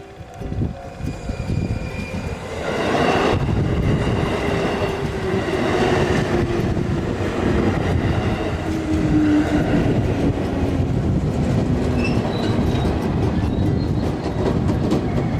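A train running past close by. It grows loud about three seconds in, with a whine that falls slowly in pitch over several seconds.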